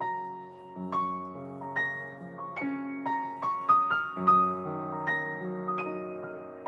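Solo piano playing a slow, gentle piece: single melody notes struck about once or twice a second over held lower notes.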